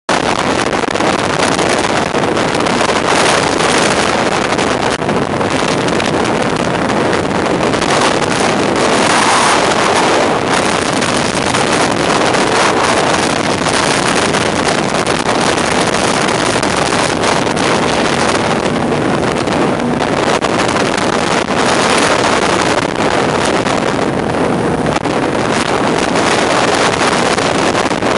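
Jet boat running underway: a steady, loud rush of engine and water noise, with wind buffeting the microphone.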